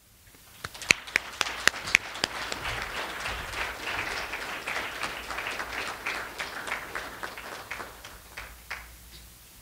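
Audience applauding: a few sharp separate claps at first, swelling into steady applause that dies away near the end.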